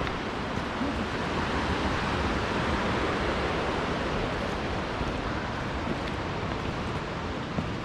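Steady rushing of creek water flowing among boulders, an even hiss with no breaks.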